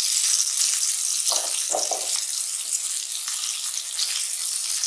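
Green gram cutlets shallow-frying in rice bran oil in a steel pan: a steady oil sizzle, with a few brief knocks of the wooden spatula turning a cutlet about one and a half to two seconds in.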